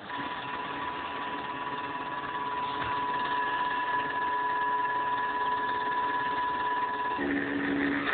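CNC profile drawing machine running, its motors giving a steady mechanical whine that shifts to a lower tone about seven seconds in.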